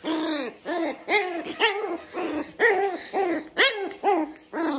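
A puppy giving a string of short, high-pitched yips, about two a second, each call rising and then falling in pitch.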